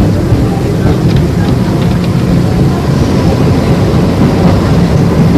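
Tokyu 5000 series electric train running: a steady rumble of wheels on the rails with the hum of its motors and gears, the hiss rising a little about halfway through.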